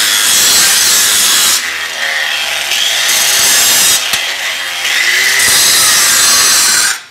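Angle grinder grinding a steel pipe joint's root gap wider, after welding heat had drawn the gap closed. The grinding is loud, eases off briefly twice, and stops abruptly near the end.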